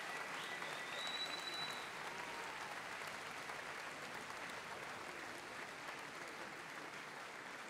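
Audience applause, fairly faint and slowly dying down, with a long high whistle over it for about a second and a half shortly after it begins.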